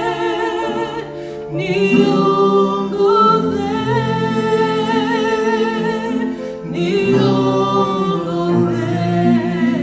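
Several voices singing together in harmony over sustained low notes, in a gospel-style vocal song, with short breaks between phrases about one and a half and seven seconds in.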